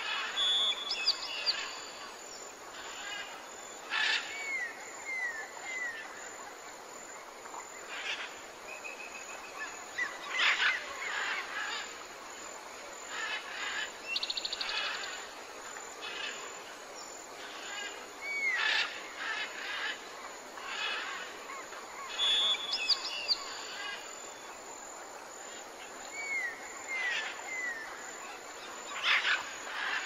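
Forest birds calling over a steady background hiss: scattered chirps and short whistles, runs of downward-sliding whistles, and a rapid trill about halfway through.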